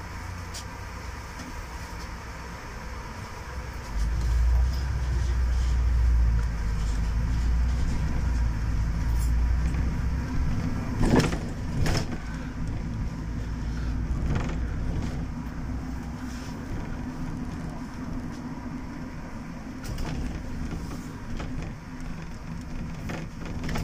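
City bus engine running, with its low rumble growing much louder about four seconds in as the bus pulls away, then easing off. A couple of sharp knocks come about halfway through.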